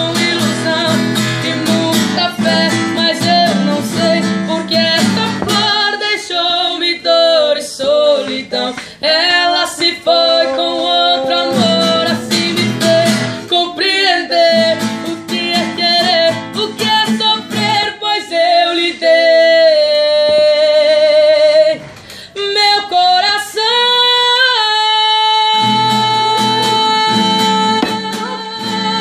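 A woman singing a slow song while strumming an acoustic guitar, ending on a long held note.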